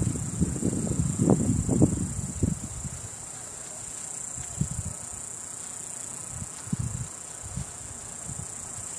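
A steady, high-pitched insect chorus. Low, irregular rumbling is heaviest in the first three seconds, then returns in a few short bumps.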